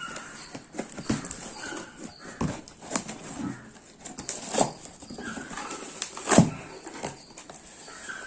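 A small cardboard box and its packaging being opened and handled: a run of rustles, scrapes and sharp clicks, the loudest about four and a half and six and a half seconds in.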